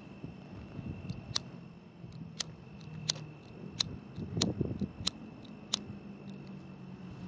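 A run of sharp, short clicks, about one every 0.7 seconds, with a brief rustle about halfway through, over a faint steady high tone and a low hum.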